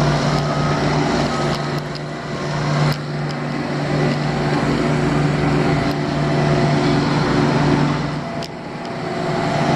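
Heavy diesel engines of soil compactors, a sheep's foot packer among them, running steadily as they pack down dirt: a deep steady hum over a pulsing low rumble. It eases off briefly about eight seconds in, then comes back up.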